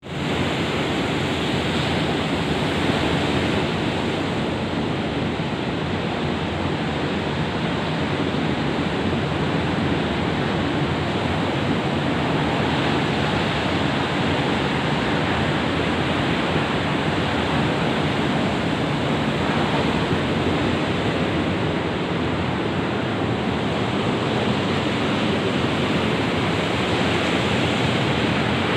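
Ocean waves breaking and washing on the shore in a steady, continuous rush of surf that swells and eases slowly.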